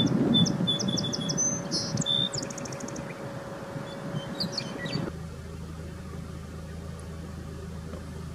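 Song sparrow singing over a low rumble: a run of clear repeated notes followed by a high buzzy trill, then a shorter second phrase. About five seconds in the song stops and only a faint low hum remains.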